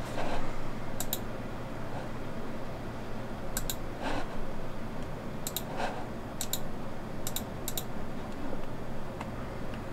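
Sharp clicks, mostly in quick pairs, from someone working a computer's mouse and keys, over a steady low hum.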